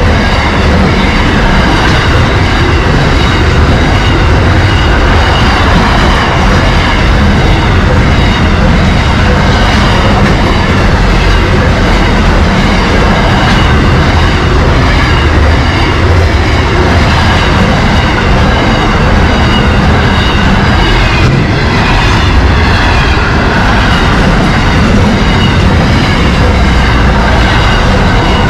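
Container freight train passing close by: the loud, steady running noise of its wagons and wheels on the rails.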